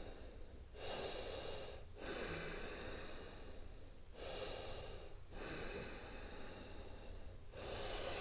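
A woman breathing deeply and audibly, slow breaths in and out of about one to two seconds each, with short pauses between them.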